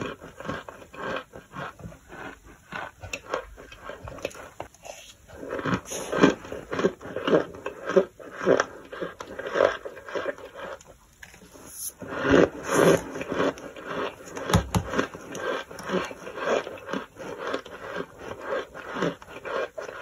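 Close-miked chewing of a mouthful of toasted, crunchy starch, with rapid gritty crunches swelling about two to three times a second. The crunching briefly drops away about five seconds in and again near eleven seconds.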